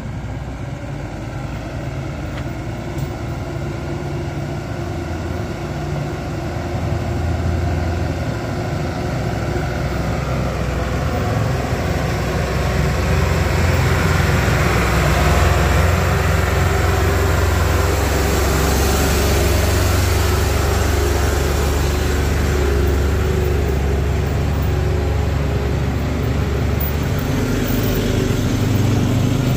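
Heavy vehicle's engine pulling up a steep climb. It grows steadily louder over the first fifteen seconds or so, then runs loud and steady.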